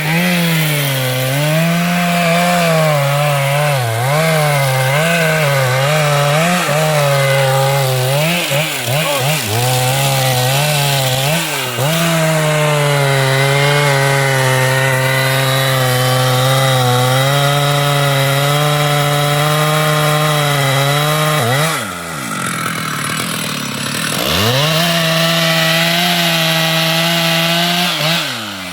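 Two-stroke chainsaw cutting into a tree. Its engine speed wavers under load, then holds steady at high revs. About two-thirds of the way in it drops to idle for a couple of seconds, revs back up, and drops again near the end.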